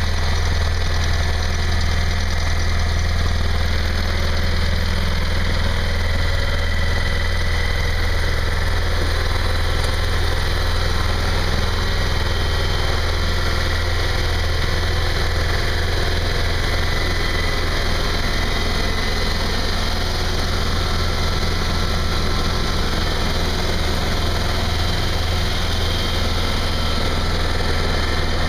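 Ditch Witch 8020 plow/trencher/backhoe's engine idling steadily with a deep, even hum.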